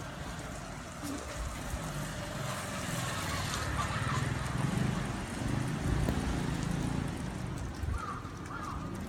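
Typhoon wind rushing and buffeting the microphone, a steady roar of noise with uneven low rumbles that swell slightly toward the middle.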